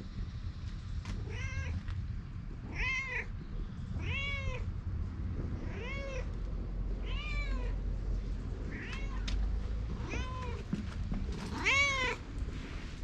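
Ginger-and-white stray cat meowing over and over, about eight meows a second or so apart, each rising then falling in pitch; the last one, near the end, is the loudest.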